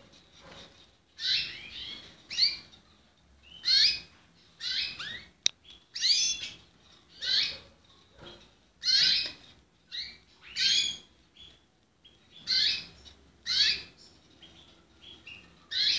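Spanish-breed canaries (young birds) calling in a wire cage: short, high chirps repeated every second or so, with one sharp tick about five seconds in.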